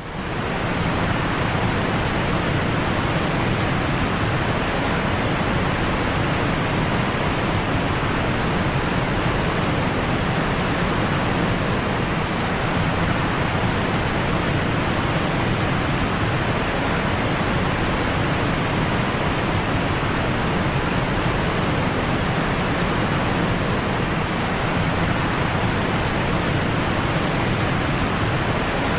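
Running water rushing steadily, an even, unbroken wash of noise.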